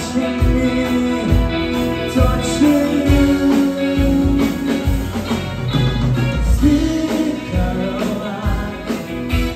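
Four-piece live band playing: electric guitar, bass guitar, keyboard and drum kit, with a male lead vocalist holding long sung notes over a steady kick-drum beat.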